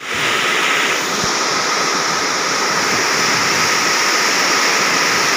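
Heavy rain pouring down steadily, a loud, even hiss of a downpour.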